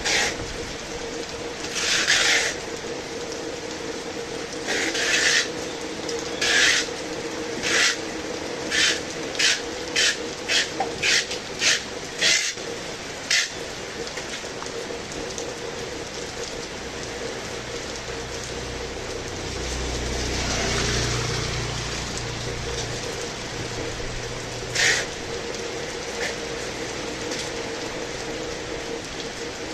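Heavy rain with a steady hiss. In the first half, a run of short rasping, scraping noises comes faster and faster, with one more near the end. A low rumble swells about two-thirds of the way through.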